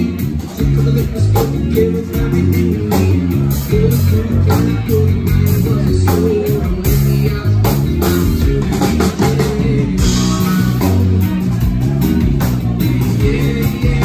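Live band playing: electric guitar, five-string bass guitar and drum kit, with the bass notes loudest and drum and cymbal hits keeping a steady beat.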